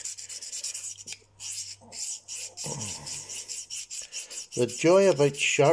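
Small pocketknife blade stroked by hand along a DMT diamond sharpening plate: a run of dry, rasping strokes as the blunted edge is ground back toward its apex.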